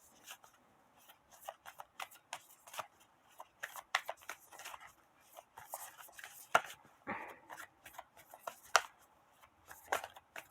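A deck of reading cards being shuffled by hand: a run of soft, irregular flicks and riffles of the cards, with two sharper snaps, one a little past the middle and one near the end.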